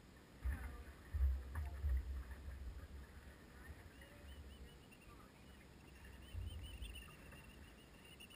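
Wind buffeting the microphone in uneven gusts, a low rumble that comes and goes, loudest in the first two seconds and again near the end. Faint high chirps repeat quietly from about the middle on.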